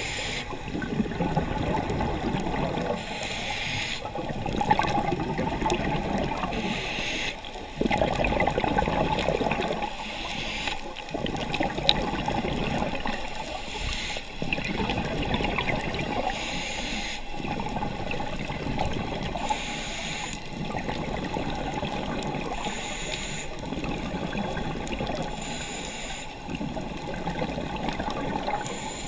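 Underwater sound of a scuba diver's regulator breathing: a continuous bubbling gurgle from the exhaust bubbles, with a hissing breath through the regulator every few seconds.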